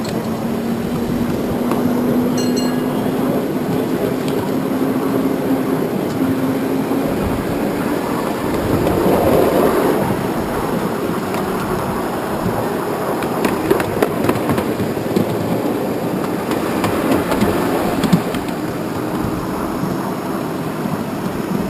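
Ride-on miniature tram running along small-gauge track: a steady hum from its drive that rises slowly in pitch over the first several seconds, under the rolling rumble of the wheels. Scattered sharp clicks and knocks come from the wheels on the rails.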